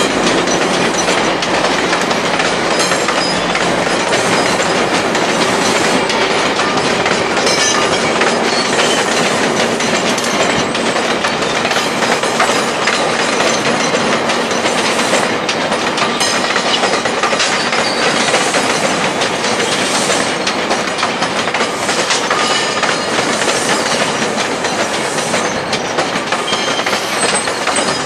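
GO Transit bilevel passenger coaches rolling slowly past, their steel wheels clattering steadily over rail joints and switches, with a faint high wheel squeal now and then.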